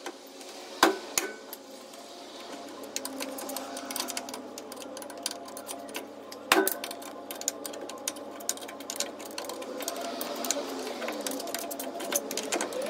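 Rubber mallet striking a stuck lower ball joint to drive it out of the truck's control arm: a fast run of many small knocks, with two louder blows, one about a second in and one about six and a half seconds in.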